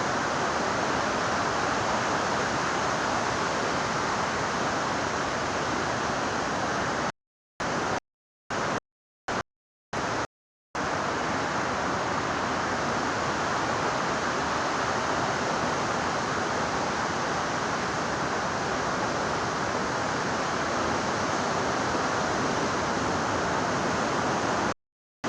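Steady, even rush of ocean surf. It cuts out to dead silence several times in quick succession about a third of the way in, and again near the end.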